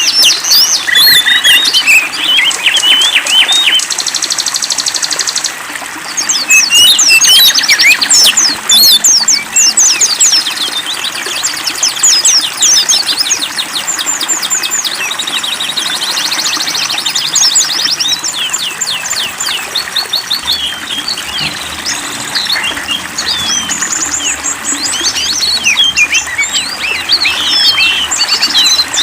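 Several songbirds chirping and trilling at once in a dense, unbroken chorus of quick rising and falling calls and fast buzzy trills.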